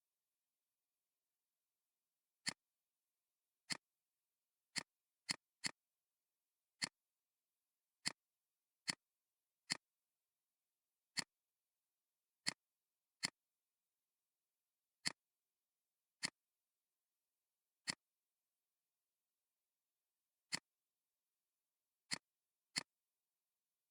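Computer mouse clicking: single sharp clicks at irregular intervals, about eighteen of them, with dead silence between.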